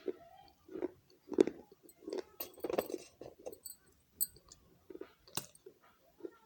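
A person chewing and crunching pieces of baked clay pot, uneven crisp crunches with sharp clicks about one to two a second, the loudest about a second and a half in.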